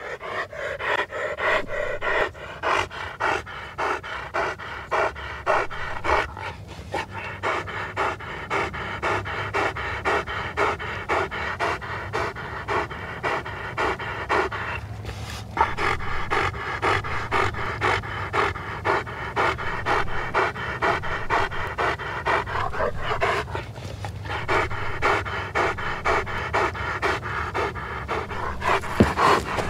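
A dog panting rapidly and steadily, about three quick breaths a second, with short pauses a few times.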